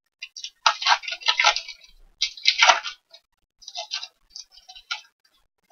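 Plastic-foil trading-card pack crinkling and crackling as it is torn open by hand, in irregular bursts with the loudest crackle about two and a half seconds in.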